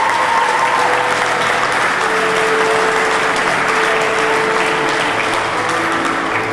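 Audience applauding, a dense steady clapping that thins out near the end, with quiet held music notes underneath.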